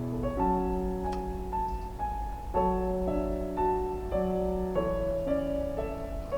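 Background piano music: a slow melody of held notes changing about every half second, over low sustained notes.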